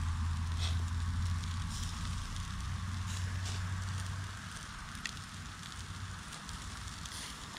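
Fire crackling in a shashlik grill, with scattered sharp pops over a low steady rumble that fades away about four seconds in.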